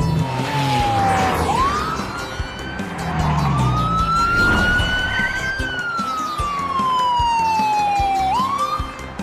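Police car siren on a wail, its pitch sliding slowly down, jumping back up and climbing, then falling again over several seconds. Sounded while pulling over a speeding car.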